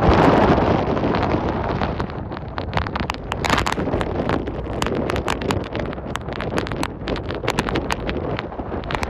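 Gale-force wind gusts buffeting the microphone: a heavy rushing blast for the first couple of seconds, then easing into rapid, irregular crackling clicks as the gusts batter the mic.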